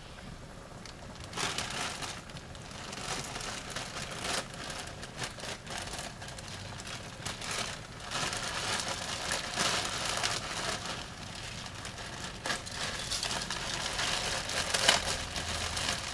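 Plastic bag crinkling and rustling in irregular bursts as dry pancit canton noodles are shaken out of it into a wok of boiling broth, starting about a second in.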